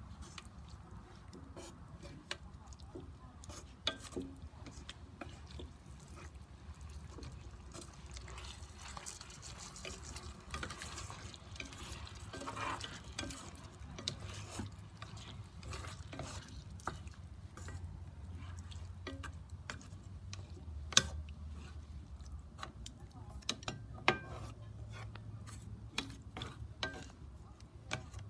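Chopsticks stirring and turning chicken drumsticks in sauce in an electric skillet: wet stirring with many small clicks and knocks of the chopsticks against the pan, and a few sharper knocks in the later part.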